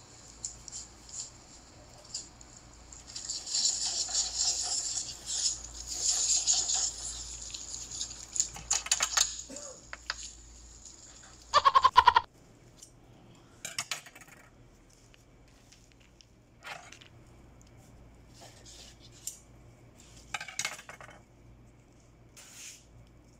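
Rustling and crinkling as flower stems and wrapped chocolates are handled and bunched into a bouquet, densest in the first half. About halfway through comes one brief, loud, buzzing rasp, followed by scattered light clicks.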